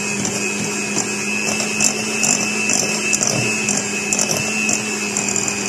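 Electric hand mixer running steadily, its beaters whipping cupcake batter in a glass bowl until it turns creamy, with a constant motor hum and whine and scattered light clicks.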